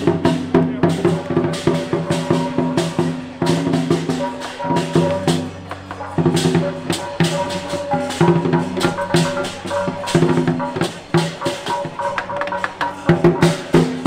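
Lion dance percussion band: drums beaten in fast, dense strokes with metallic clashing and ringing layered over them, easing briefly twice before picking up again.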